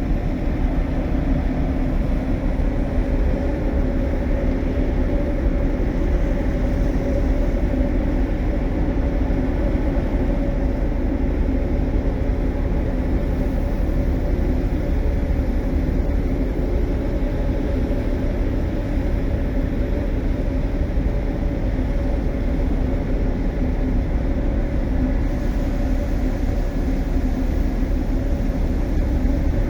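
Ship's engine running steadily during an unberthing manoeuvre: a loud, unchanging low drone with a constant hum.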